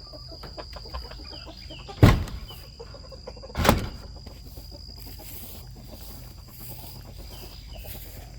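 Chickens clucking over a steady high-pitched insect drone, with two loud thumps about two seconds and three and a half seconds in.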